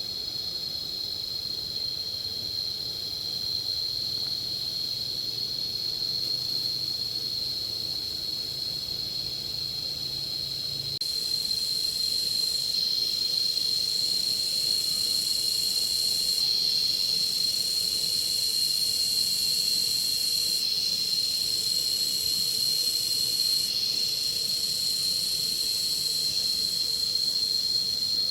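Steady high-pitched insect chorus, a continuous shrill drone with further insects joining and dropping out, louder from about eleven seconds in.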